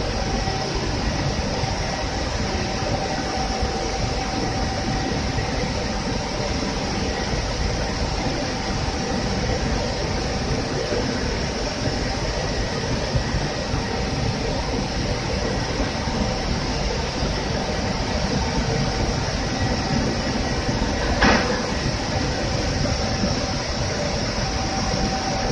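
UV curing machine on a wood-coating line running steadily, its top-mounted fan motors and roller conveyor making a continuous mechanical noise with a steady hum. A single sharp click comes near the end.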